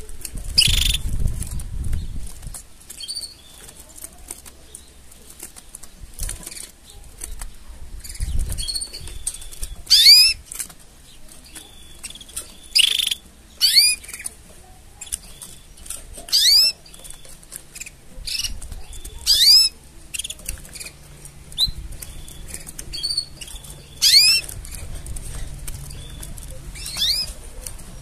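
Canaries giving short, sharp high calls, each a quick sweep in pitch, about a dozen of them spaced one to three seconds apart. Wing fluttering is heard near the start and again about eight seconds in.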